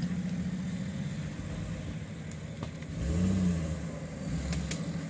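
Nissan Patrol's engine running at low revs while crawling through mud. The revs rise and fall briefly about three seconds in, with a smaller lift near the end.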